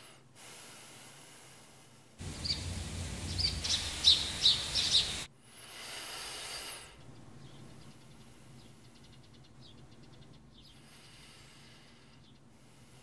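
Soft, slow breathing of a sleeping woman, close-miked, with birds chirping. A louder stretch of noise with several sharp chirps comes between about two and five seconds in.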